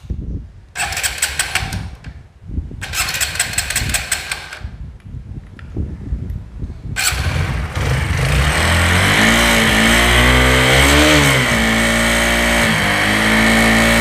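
TVS 4V single-cylinder motorcycle engine cold-started on the electric starter: two short bursts of cranking, then it catches about seven seconds in and idles, revving up briefly a couple of times. It runs with a harsh buzzing rattle from the engine, which the mechanic puts down to badly adjusted rocker arms and tappets (valve clearance set too tight).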